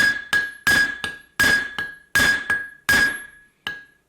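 A hammer strikes a steel hex nut resting on a small anvil about eleven times, roughly three blows a second. Each blow gives a sharp metallic clang with a short ring. The nut is a tough one and resists being squashed flat onto the cord.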